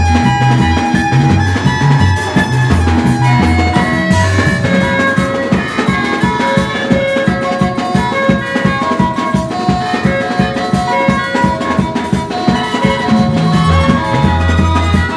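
Music with a steady drum beat and instrumental melody.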